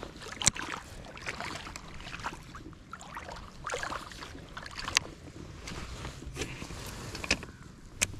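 Splashing steps in shallow water and wet clay at the water's edge. A few sharp clicks stand out as a baitcasting reel is handled.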